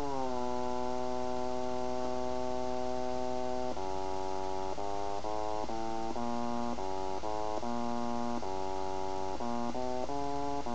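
littleBits Korg Synth Kit oscillator playing through its small speaker: one steady synth tone, then from about four seconds in a quick run of stepped notes at different pitches. A steady mains hum lies underneath.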